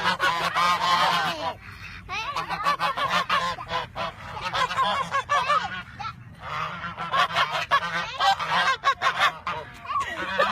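Loud, repeated bird calls, goose-like, in three bouts separated by short pauses about 1.5 s and 6 s in.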